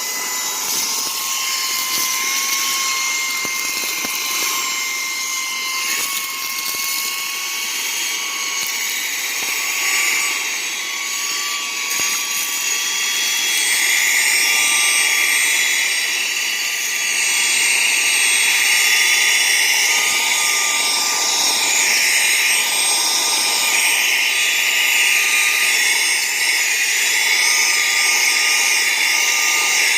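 Saker cordless handheld vacuum running on its high setting, sucking dirt off a truck's floor: a steady high motor whine under rushing air. The rush of air grows louder about 13 seconds in and then swells and dips as the nozzle moves.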